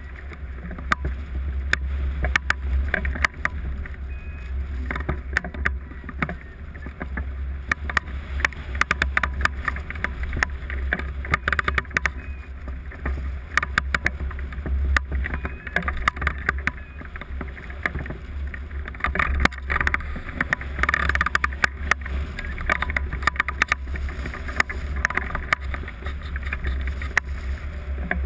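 Airflow buffeting the microphone of a camera mounted on a hang glider in flight: a steady low rumble with constant crackling and flutter.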